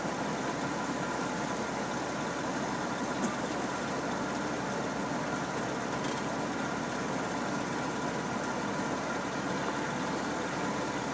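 Vehicle engine idling steadily, close by.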